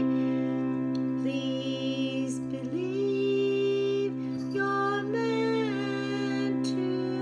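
A woman singing a slow, wordless melody in long gliding phrases over a steady droning chord.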